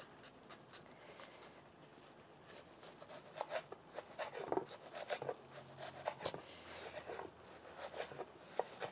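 Kitchen knife dicing a white onion into small cubes, with soft irregular clicks, taps and scrapes of the blade and onion pieces on a wooden cutting board, starting about two seconds in.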